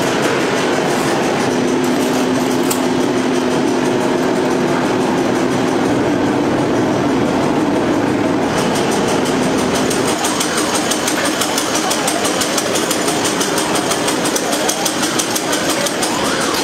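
Steady mechanical din of a food-factory conveyor line with a stainless mesh belt. A steady hum runs until about ten seconds in, and a fast, even ticking joins about halfway through.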